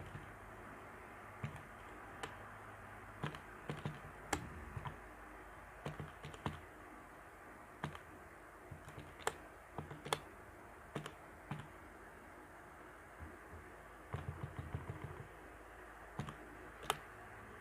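Irregular clicks of keys or buttons being pressed, some in quick runs, over a faint steady hum.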